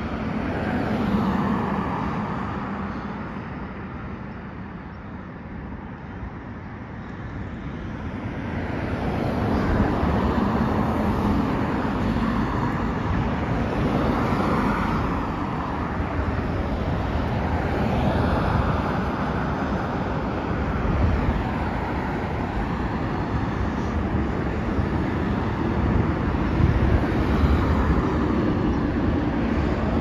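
Road traffic passing on a wide road: cars driving by one after another, their tyre and engine noise swelling and fading. There is a quieter lull a few seconds in, then near-continuous traffic for the rest.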